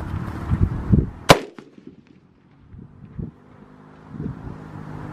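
A single loud gunshot from a .338 Lapua Magnum rifle about a second in, with a short echo trailing off. A few low thumps come before it.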